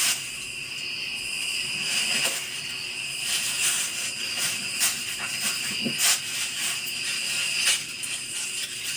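Steady, high-pitched chorus of night insects in woodland, with a few separate cracks and rustles of footsteps moving through brush.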